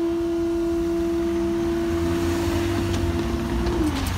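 Steady hum from the level crossing barrier mechanism as the barrier boom lowers, cutting off with a slight drop in pitch near the end once the barrier is down. A low rumble swells underneath in the second half.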